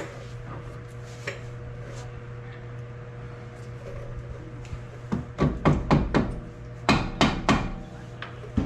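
Hammer blows on metal suspension parts as a new strut is knocked down into the steering knuckle. The blows come in two quick runs in the second half, about five and then three or four, with one more near the end.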